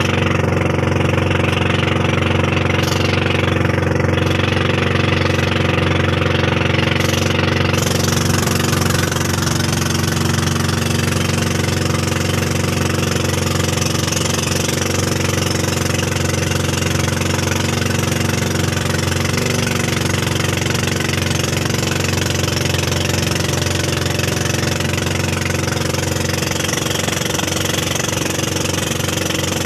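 A small wooden motorboat's engine running steadily under way. Over it is a rushing hiss of wind and water that grows louder about eight seconds in.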